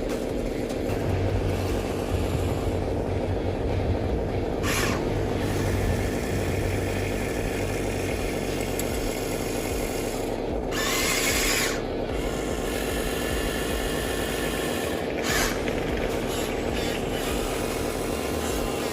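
Electric motor and gearbox of a toy-grade RC truck or excavator whirring steadily, with three short bursts of hiss, the longest about a second, roughly 11 seconds in.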